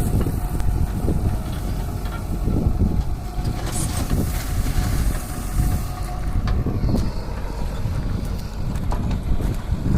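Excavator's diesel engine running steadily with a low rumble, with a few sharp knocks during stone loading.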